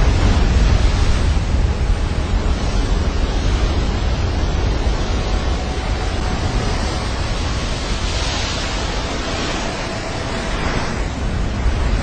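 Steady roar of a giant ocean wave and wind, with heavy wind noise on the microphone and a strong low rumble; the hiss swells about two-thirds of the way through as the wave breaks into whitewater.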